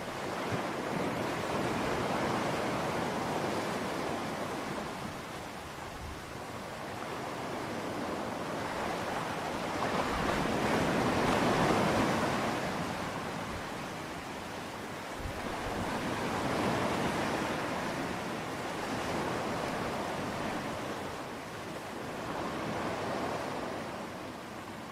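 Sea surf washing, a steady rush of water noise that swells and ebbs in slow waves every few seconds.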